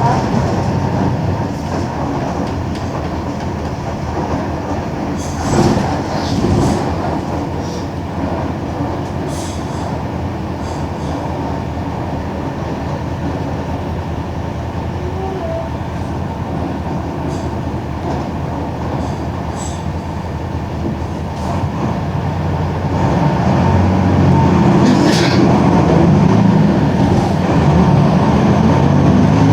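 Mercedes-Benz OM-366LA six-cylinder turbo diesel of a Mercedes-Benz OF-1721 bus running under way, a steady drone with a few short knocks and rattles. It grows louder about three-quarters of the way through as the engine works harder.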